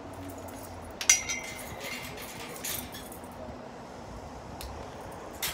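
A sharp metallic clink about a second in that rings briefly, followed by a few softer metal knocks: a bicycle being handled and leaned against a row of steel shopping trolleys.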